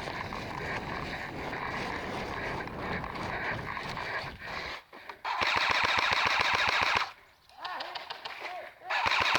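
Airsoft guns firing on full auto: a rapid rattle of shots for the first four to five seconds, then a louder, closer burst from about five and a half to seven seconds in, and another short close burst near the end.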